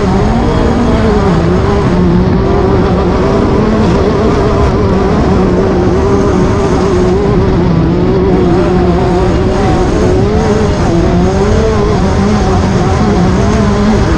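Class 10 off-road race car engine running hard, its note wavering up and down with the throttle over a steady rushing noise.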